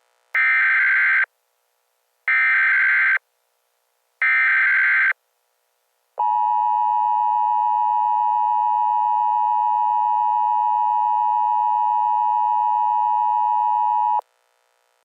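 Emergency Alert System tones: three short bursts of the screechy SAME header data signal, then the steady two-tone EAS attention signal held for about eight seconds and cut off abruptly, announcing a tornado warning.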